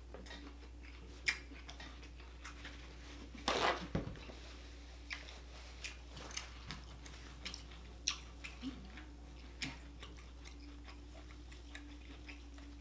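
Close-up chewing of food with the mouth closed: soft, irregular wet clicks and smacks over a low steady hum, with one brief louder noise about three and a half seconds in.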